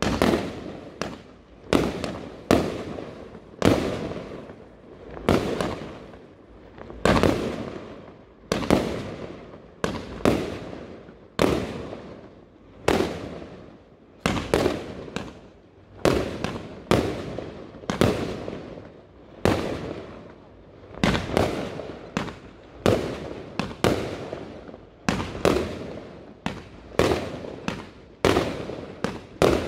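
Aerial firework shells bursting one after another, a sharp bang about every second, each followed by a fading echo.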